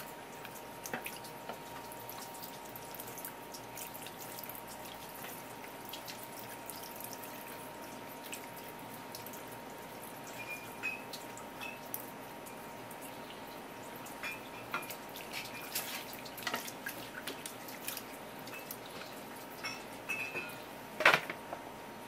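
Thin stream of tap water splashing onto a wooden cutting board, with scattered small wet clicks and taps as a kitchen knife scrapes over an opened spear squid's mantle. A single sharp knock near the end.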